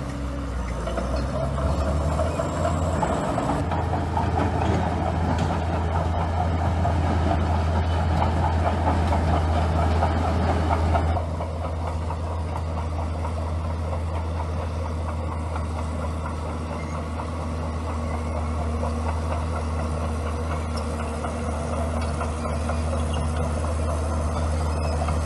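Bulldozer diesel engine running steadily, working harder and louder with some clatter for the first ten seconds or so, then easing off suddenly to a lower, even hum.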